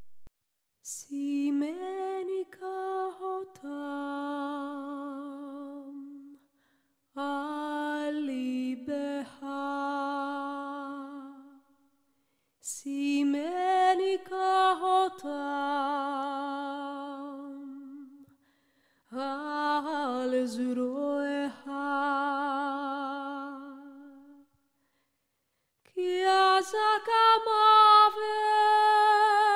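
Background music: a single voice singing slow, drawn-out phrases with wide vibrato and no accompaniment, with short silent pauses between the phrases.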